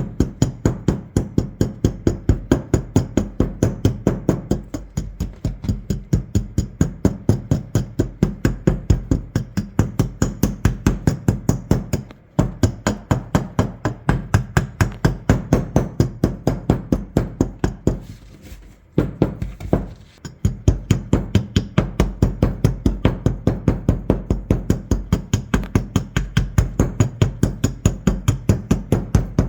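Rapid, even hammer taps, about four a second, chipping hardened rust off an old shotgun, with a few short pauses.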